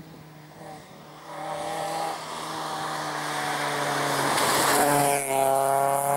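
Fiat Seicento rally car's engine approaching under hard throttle and passing close by, getting steadily louder. It briefly lifts off the throttle about two seconds in and again about five seconds in, then the pitch rises as it accelerates away.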